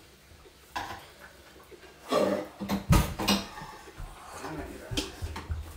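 Dishes and utensils being handled on a kitchen counter: scattered knocks and clatter, with a heavier thump about three seconds in.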